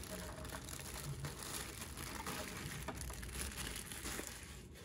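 Clear plastic packaging bag crinkling and rustling as it is pulled off a laminator and handled, with many small crackles.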